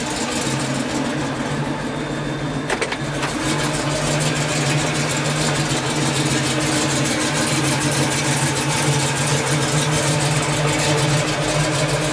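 The fuel-injected 396 big-block V8 of a 1970 Chevrolet Camaro idling steadily, with a sharp click about three seconds in as the door latch is opened.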